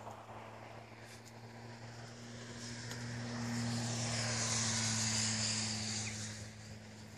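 A vehicle passing at a distance: a broad rushing noise swells to its loudest about five seconds in and then fades, over a steady low hum.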